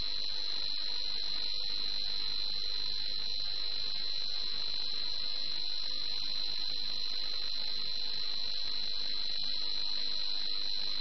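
A steady high-pitched electronic tone over a faint hiss, unchanging throughout.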